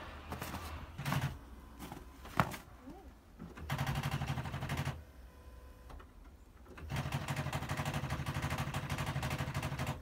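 Car's starter solenoid chattering in rapid clicks as the ignition key is held, in two runs, a short one near the middle and a longer one near the end, without the engine cranking: the clicking typical of a battery too weak to start the car.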